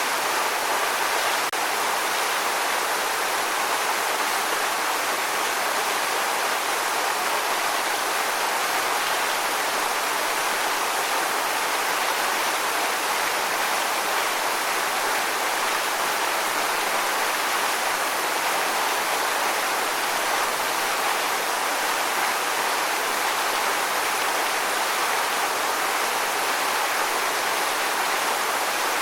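Waterfall: water pouring and splashing in a steady, unbroken rush with no distinct drops or changes.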